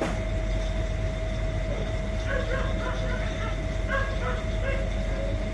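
Steady mechanical hum with one held tone, and from about two seconds in, two short runs of faint high yips from an animal.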